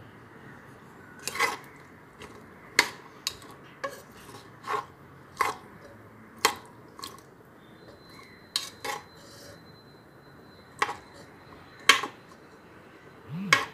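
A spoon knocking and scraping against the inside of a pressure cooker pot while boiled chickpeas are stirred, about a dozen sharp clinks at irregular intervals.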